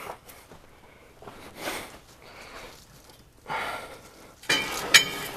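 Hands working on a round baler's net wrap holder: irregular scraping and rustling, with a sharp metal clink about five seconds in.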